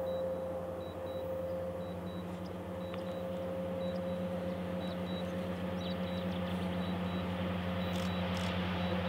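Distant diesel freight locomotives, EMD SD70MACs with 710 engines, making a steady low engine drone with a fine even throb that grows slowly louder as the train approaches. A steady higher tone sits over the drone.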